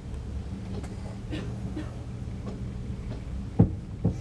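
Passenger train carriage rolling slowly, heard from inside: a steady low hum and rumble with a few light knocks, then two sharp knocks about half a second apart near the end as the wheels cross a rail joint.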